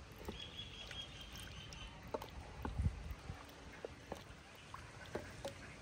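A spoon stirring a large pot of paya: faint sloshing of the broth, with a few light knocks of the spoon against the pot and a duller thump near the middle.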